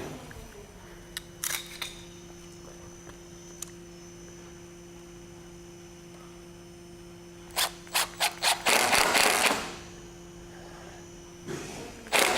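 A power driver driving a screw to fix a metal rafter bracket to a timber rafter: four quick blips of the trigger, then a loud run of about a second, and another run near the end. A steady low hum sits underneath.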